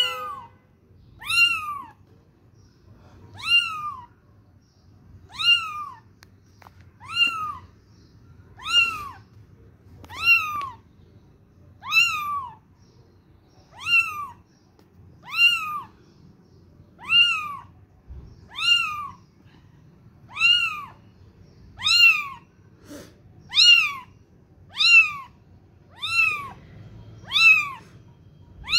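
Young kitten mewing over and over, one short call every one and a half to two seconds, each rising then dropping in pitch: a kitten's call for its mother.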